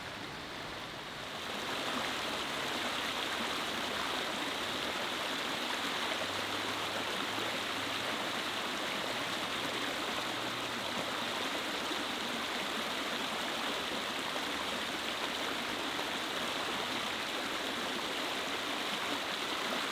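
Steady rushing of running water, getting louder about a second and a half in and then holding even.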